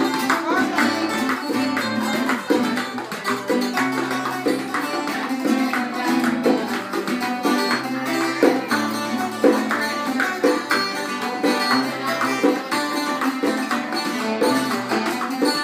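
Live acoustic music: an acoustic guitar and a smaller strummed string instrument playing together, with a hand drum beating out a steady rhythm.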